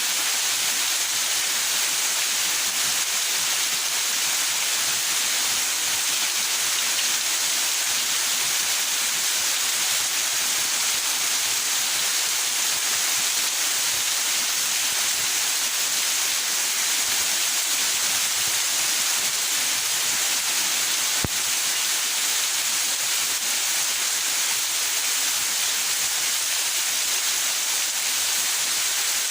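Steady rain falling in a backyard, an even hiss without let-up. A single sharp click sounds about two-thirds of the way through.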